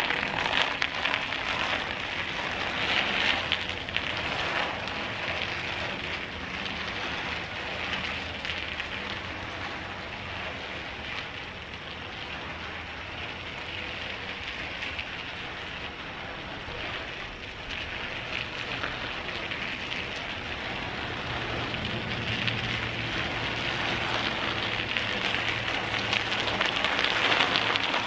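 Loaded bicycle's tyres crackling and crunching over gritty pavement as it rides off and comes back. The sound fades as the bike moves away and grows louder again near the end as it returns.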